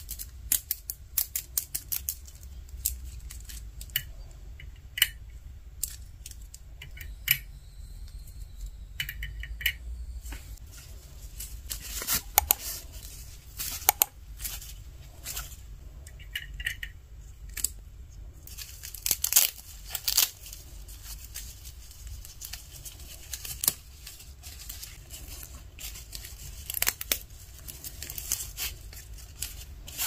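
Small plastic toy clothes hangers clicking and tapping irregularly as they are handled and hooked onto a plastic toy clothes rail, with a few short stretches of denser rustling and clatter.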